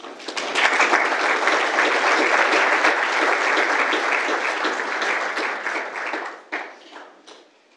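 Audience applauding: many hands clapping, building within the first second, holding steady for about six seconds, then thinning out and dying away.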